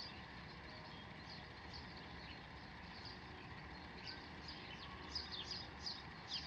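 Faint bird chirping: short chirps that drop in pitch, repeating and coming faster about five seconds in, over a low steady background hiss.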